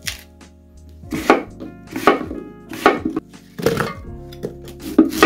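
Kitchen knife chopping through Korean radish on a cutting board, a firm stroke roughly every second, with faint background music underneath.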